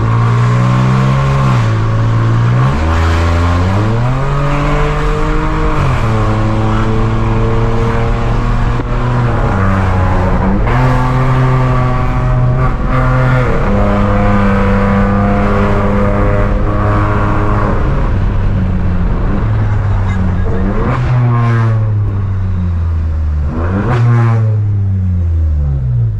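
Volkswagen Virtus 1.0 TSI three-cylinder turbo engine running through a stainless downpipe and muffler-less catback exhaust, loud, as the car accelerates. The engine pitch climbs and drops back several times, as with gear changes, with quicker rises and falls near the end.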